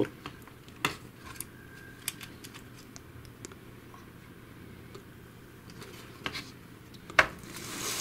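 Small plastic clicks and taps from handling a robot vacuum's circuit board and plastic chassis, including unplugging a small wire connector, a few scattered over several seconds. A louder knock comes about seven seconds in, followed by a short rustle as the chassis is moved.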